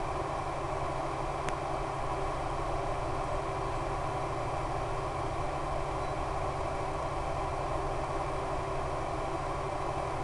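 Steady, even drone of an RC plane's E-flite Power 10 electric motor and 11x7 APC propeller in flight, mixed with a rush of air. A faint tick comes about one and a half seconds in.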